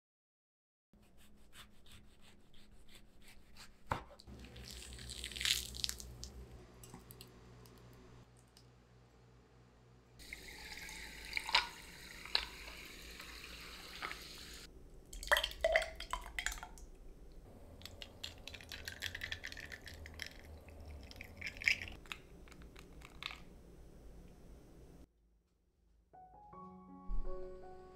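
Drink-making sounds: liquid poured into a glass of ice, with splashes and sharp clinks of ice and glass, over soft background music.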